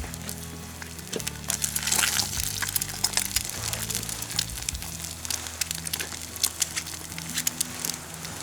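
An egg frying in a pan on an alcohol stove, sizzling with many small sharp crackles and pops, over background music.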